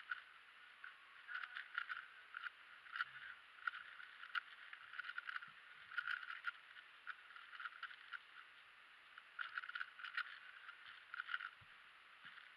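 Faint clicking and clacking of a MoFangGe QiYi WuQue stickerless 4x4 speed cube being turned fast, in quick bursts of turns separated by short pauses.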